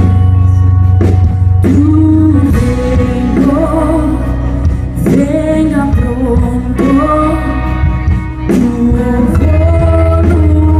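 Live worship band music: women's voices singing the melody over electric guitar, bass and drums, with regular drum hits and a heavy steady bass underneath.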